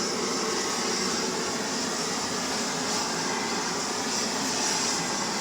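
Blowtorch flame burning with a steady hiss.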